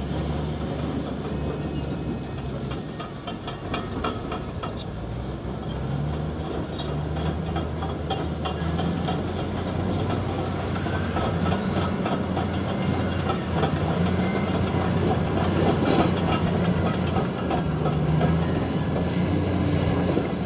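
Large tracked bulldozer's diesel engine working as it moves and turns, its pitch rising and falling several times and growing louder toward the end.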